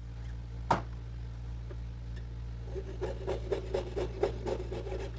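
A sharp click, then quick back-and-forth strokes, about four or five a second, of a jeweler's hand tool scraping on the metal ring shank as the ring is cut and shaped for sizing down.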